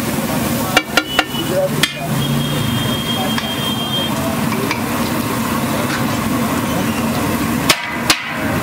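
Egg mixture sizzling steadily on a large flat griddle. A metal spatula knocks sharply against the griddle about four times around a second in, and twice more near the end.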